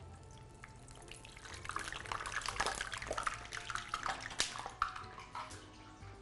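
Kibbeh frying in hot oil: sizzling and crackling that builds about a second and a half in and eases off near the end, a sound the cook takes as a sign the oil is right for frying. Faint background music underneath.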